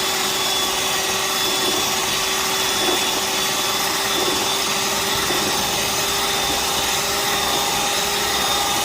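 Electric mixer running steadily at low speed, beating egg whites with cream of tartar that are not yet foamy; a constant whirring hum.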